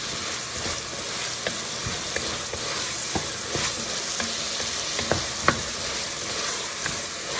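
Chopped vegetables sautéing in an enamelled cast-iron Dutch oven, sizzling with a steady hiss while a spoon stirs and tosses them. Short clicks and scrapes of the spoon against the pot come here and there.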